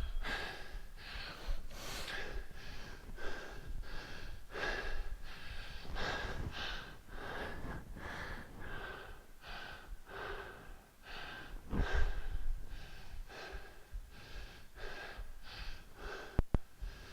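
Heavy, rhythmic breathing of a man working hard through a hang snatch thruster interval, sharp breaths about twice a second, with a dull thump about twelve seconds in.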